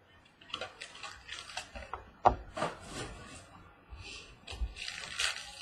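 Hands handling trading card boxes and tearing open the wrapper of the next one: a run of short scraping and rustling noises of cardboard and wrapping, with a sharp tap about two seconds in and a denser rustle near the end.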